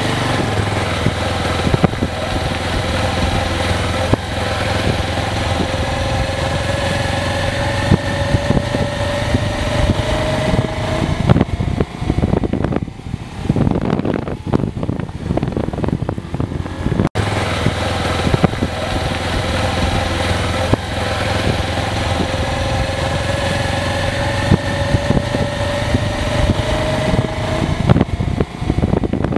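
A motor vehicle's engine running as it drives along, with a steady low hum and a whine that slowly rises in pitch, twice. Around the middle there is a rougher, rattling stretch and a brief dropout.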